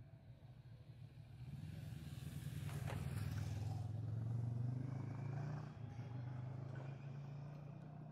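A road vehicle passes close by. Its engine hum and road noise build up over about two seconds, are loudest around the middle, then fade away.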